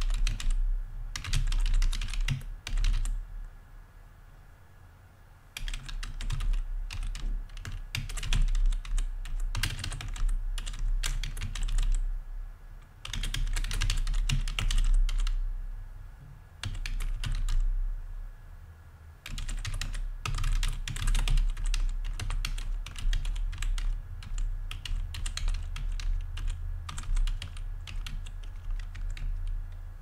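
Typing on a computer keyboard: fast runs of key clicks lasting a few seconds each, broken by short pauses.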